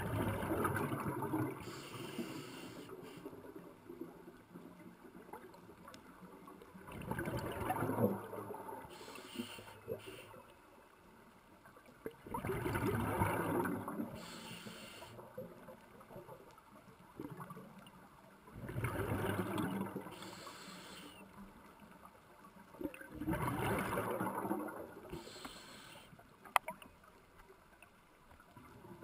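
A scuba diver's regulator underwater, breathing out: about four bursts of bubbles, each some two seconds long and spaced roughly five to six seconds apart, with quieter stretches between.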